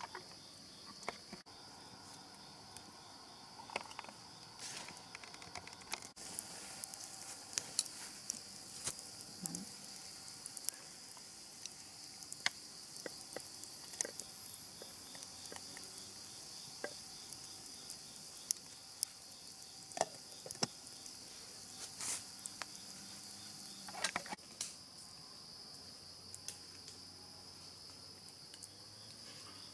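Steady chirring of crickets, with scattered sharp clicks and taps from about six seconds in until about twenty-five seconds in.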